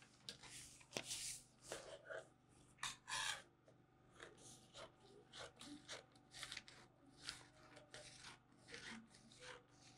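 Scissors cutting through a folded paper sewing pattern: a faint run of short, crisp snips, about two a second, with the paper rustling under the hand.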